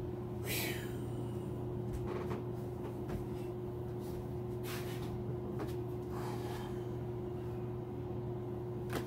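Steady low electrical hum, a mains-type buzz with a few fixed pitches. A few brief, soft noises come over it about half a second, two, four and a half and six seconds in.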